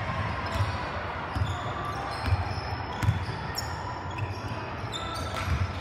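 Basketball bouncing on a hardwood gym floor during play, a run of dull thumps at irregular intervals. Short, high sneaker squeaks are mixed in among the thumps.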